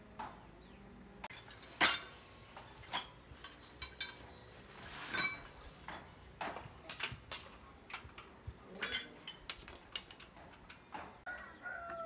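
Sharp metal clinks and knocks of hand tools against a bicycle's frame and wheel parts, coming at irregular intervals. The loudest is about two seconds in, one rings on briefly about five seconds in, and a quick cluster comes near nine seconds.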